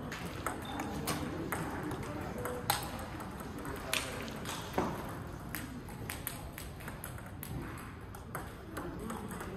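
Table tennis ball clicking against bats and table in an irregular patter, with a few louder knocks near the middle, over voices in the background.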